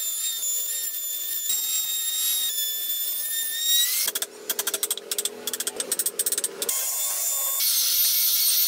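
Compact trim router running and cutting wood with a high steady whine that jumps in pitch a couple of times. About four seconds in it gives way to a quick run of sharp clicking knocks, about six a second, from a chisel chopping into the wood, and the router whine returns for the last second or so.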